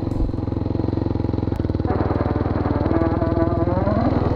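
Dirt bike engine running as the bike climbs a single-track trail, heard close from the rider's helmet; the engine note rises near the end as it revs up.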